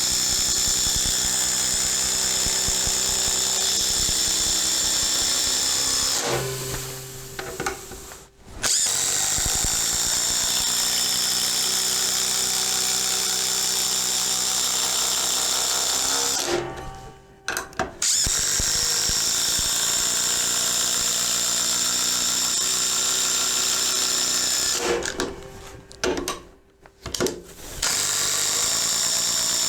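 Ryobi ONE+ HP brushless impact driver (PBLID02) driving timber screws under heavy load, with a steady high whine. It runs in three long stretches, each winding down to a stop. Short trigger blips fill the last pause.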